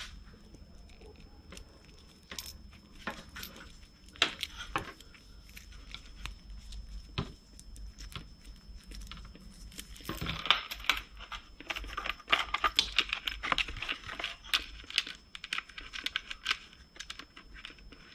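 Small parts being handled by hand: light clicks and clinks of metal wire terminals, plastic and cable. The clicking and rustling gets busier about ten seconds in.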